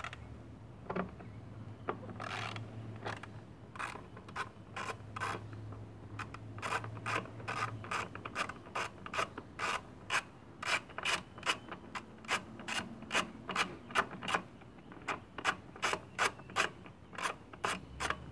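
Hand ratchet with socket clicking stroke after stroke as a bolt on the engine's top cover is turned out: sharp clicks about two or three a second, sparse at first and steady from a few seconds in.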